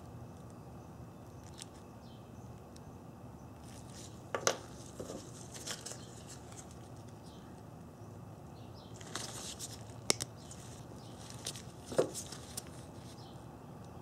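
Faint handling noise from gloved hands working a wire and a plastic heat-shrink butt connector: a few short rustles and clicks, spread out with quiet between them, the sharpest about ten and twelve seconds in.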